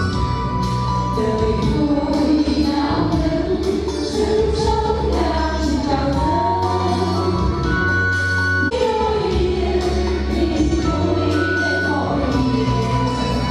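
Music: a song sung by a group of voices over instrumental backing with a steady beat.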